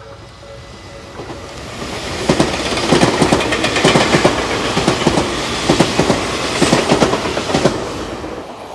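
Tobu 200 series 'Ryomo' limited express electric train passing at speed close by. Its rushing rolls up to a dense run of wheel clacks over the rail joints for about five seconds, then fades as the train draws away.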